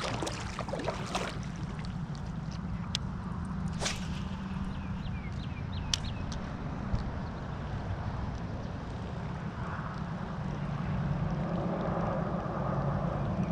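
Fishing kayak moving on the water: water sounds against the hull over a steady low hum, with a few sharp clicks.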